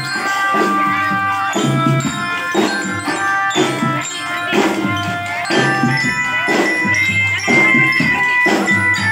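Children's marching drum band playing: bellyra (marching glockenspiel) notes ringing over drum beats about once a second.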